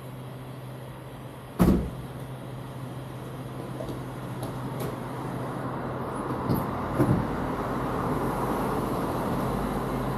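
Car being refuelled at a petrol pump: a steady low hum, a loud knock about two seconds in and two lighter knocks around seven seconds, while a rushing noise swells from about four seconds on.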